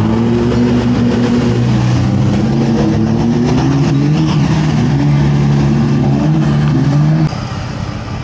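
Engine of a 4x4 off-road vehicle running under load, its revs rising and falling again and again. The sound drops away suddenly about seven seconds in.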